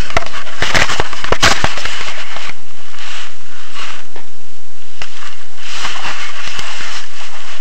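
Loud crackling and knocks of camera handling noise, the microphone rubbing against bedding fabric, with the sharp knocks thickest in the first second and a half.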